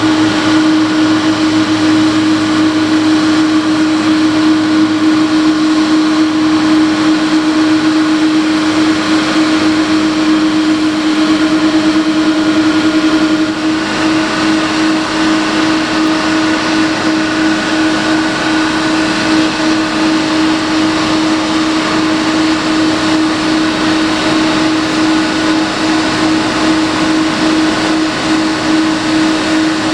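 Boeing 777-300 airliner running on the ground, a steady jet drone with a strong constant hum-like tone over rushing noise; it drops slightly in level about thirteen seconds in.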